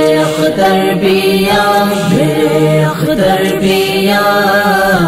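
Unaccompanied devotional vocal chanting of an Urdu naat: long held notes that rise and fall slowly in pitch, with no instruments.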